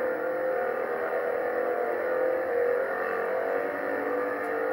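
Seagate ST-412 MFM hard drive's spindle motor spinning the platters on its own after being freed from a stuck state: a steady whir with a metallic tone that wavers slightly in pitch. The metallic note sounds awful, but the owner reckons it could be the spindle bearings rather than the heads scraping the platters.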